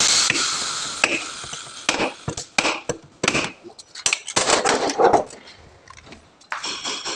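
A loud hissing noise dies away over the first second, then irregular clinks and knocks of hand tools and metal parts during bodywork on a vehicle's front end.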